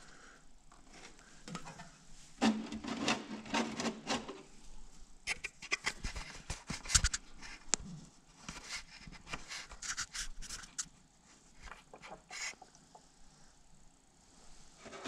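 Hands working a radiator drain valve and its hose on a lawn tractor: scattered clicks, taps and scrapes, with a longer scraping rasp about two and a half seconds in.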